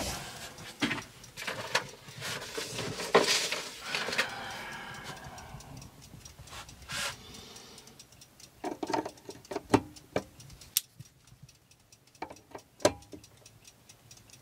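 Scattered small clicks and knocks of fingers working at the hands and taper pin on an antique wall clock's hour shaft. A knock about three seconds in leaves a ringing tone that fades over a couple of seconds.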